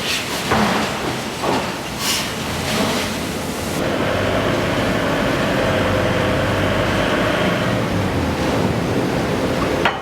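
Forge shop machinery: two heavy knocks in the first two seconds, then a steady mechanical running noise with a low hum from about four seconds in.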